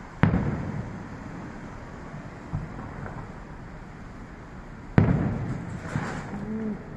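Fireworks exploding: two loud booms about five seconds apart, each rolling off slowly, with a fainter pop between them and a brief crackle after the second.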